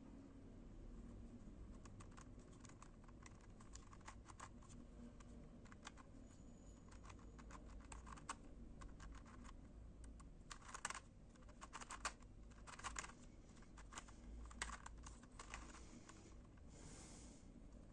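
Dino Eye Nazarí, a custom Skewb/dino-type twisty puzzle, being turned by hand: its pieces make light, irregular clicks as the layers rotate. The clicks come in quick clusters, thickest and loudest about ten to fifteen seconds in.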